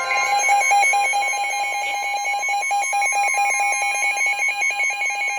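Emergency Alert System attention signal: the harsh two-tone alert, 853 Hz and 960 Hz sounded together, held steady with a fast beating wobble. It is the tone that announces an emergency alert.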